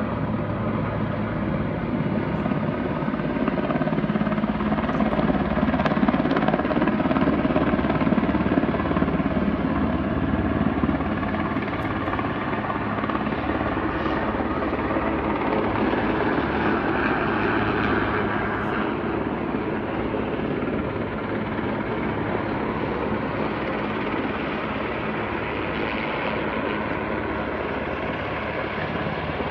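Helicopter flying overhead with a steady rotor and engine noise. It is loudest a few seconds in and then slowly fades as it moves away.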